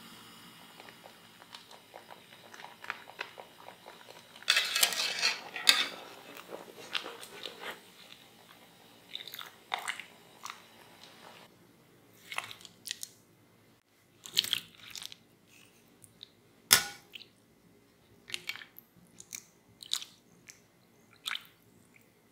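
Boiled potato sticks being scooped with a wire-mesh skimmer and tipped into a glass bowl: a string of short wet splashes, soft knocks and clinks of the skimmer. A dense splashy flurry comes about five seconds in, and a single sharp knock near seventeen seconds is the loudest.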